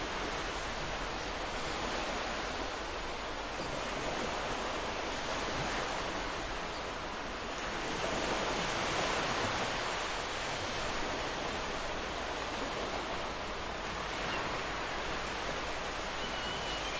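Ocean surf washing onto a beach: a steady rush of breaking waves that swells a little about eight seconds in.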